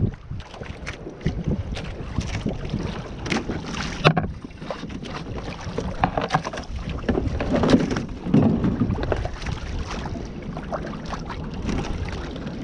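Water sloshing along a Hobie Tandem Island sailing kayak's hull under way, with wind on the microphone. Scattered plastic clicks and knocks as a deck hatch is opened and a plastic tackle tray is handled, the sharpest about four seconds in.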